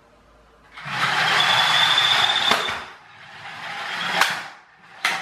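Clockwork toy car's wound-up spring motor and gears whirring with a steady high whine as it runs across a hard floor, then two sharp knocks about a second apart near the end as it crashes into the kitchen cabinet plinth.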